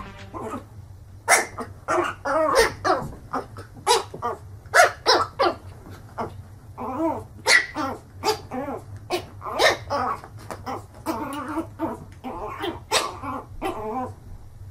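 A small puppy barking in many quick, high-pitched yips at its own reflection in a mirror. The yips start about a second in and come in irregular runs.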